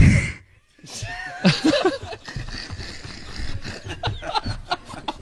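A sudden loud burst, then people snickering and laughing from about a second in.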